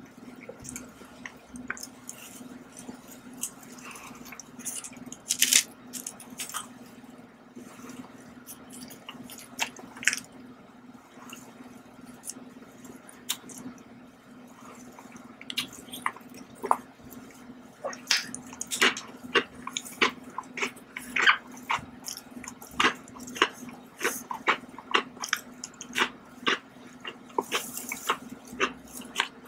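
Close-miked chewing and mouth sounds of someone eating a soft chocolate cake snack: many short wet smacks and clicks over a steady low hum, with a brief rustle near the end.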